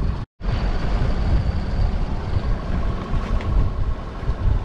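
Steady low rumble of a small fishing boat under way, its engine running with wind buffeting the microphone. The sound cuts out completely for an instant about a third of a second in.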